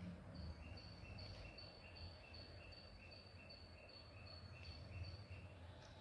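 Faint chirping, even short chirps repeated about two and a half times a second over a low background hiss, stopping shortly before the end.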